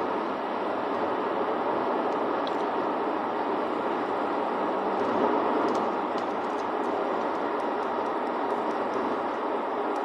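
Steady road and tyre noise with engine hum inside a car cabin cruising at motorway speed, with a few faint ticks about halfway through.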